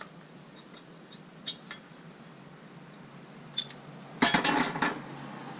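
Metal parts and tools being handled on a wheel hub job: a few light metallic clinks, then a short clatter of metal on metal about four seconds in.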